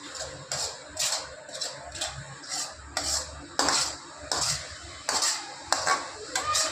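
A cooking utensil stirring in a pan, knocking and scraping against it roughly twice a second in an uneven rhythm.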